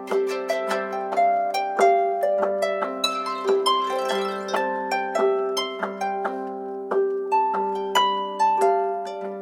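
iPhone ringtone: a harp-like melody of quick plucked notes in rolling runs over held low notes, each note ringing and fading.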